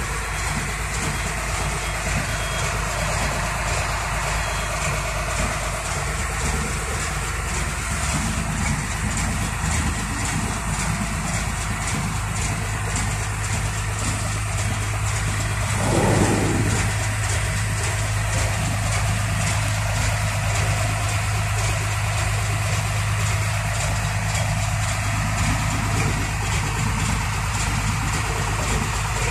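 Diesel engine of a Hino tronton truck running steadily, with a brief louder burst about halfway through.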